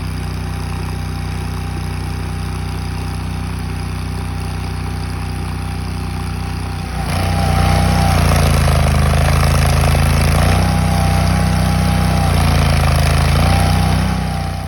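Chain trencher's engine running steadily. About halfway it grows louder, and its pitch then sags and recovers several times as the digging chain loads it.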